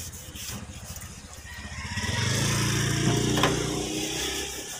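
A cloth being rubbed back and forth over the sheet-metal underside of a car hood, wiping off grime with degreaser. The rubbing gets louder about halfway through, then eases off near the end.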